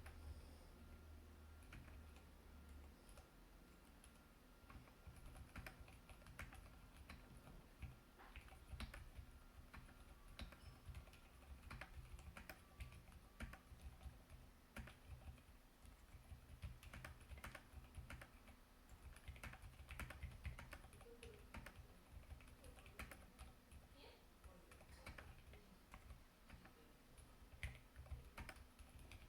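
Continuous typing on a KBDfans D84 75% mechanical keyboard with Gateron Silent Red switches, dampened linear switches: a faint, irregular stream of soft keystrokes.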